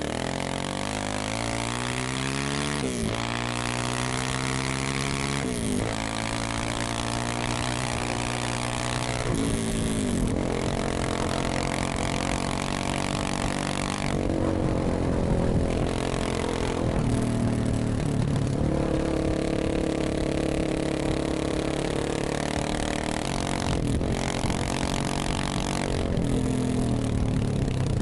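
Dirt bike engine accelerating hard through the gears. The pitch climbs and drops sharply three times in the first ten seconds as the rider upshifts, then the engine runs at a steadier speed with smaller changes in throttle.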